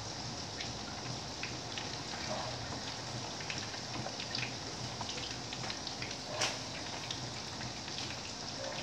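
Pork meat patties frying in hot oil in a pan: a steady sizzle with scattered crackles and pops. A louder click comes about six and a half seconds in.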